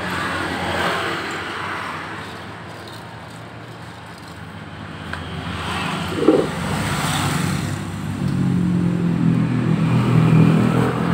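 Yamaha Byson single-cylinder motorcycle engine running with its rear wheel turning, with a rough knocking 'krok' noise. The engine slows after about two seconds, gives one short knock about six seconds in, and picks up again near the end.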